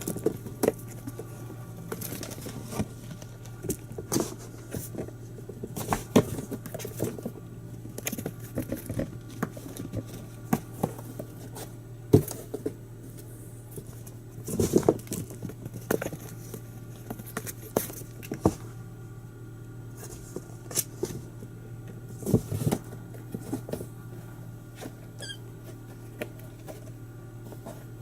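Kittens' paws pattering and thumping irregularly as they scamper, pounce and land, with scattered louder knocks, over a steady low hum.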